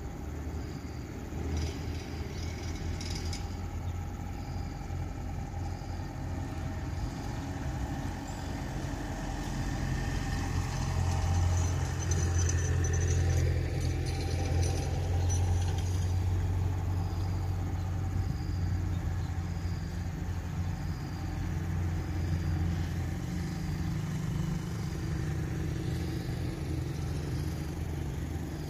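A low engine hum that grows louder around the middle and then eases off, with a faint high chirp repeating about once a second.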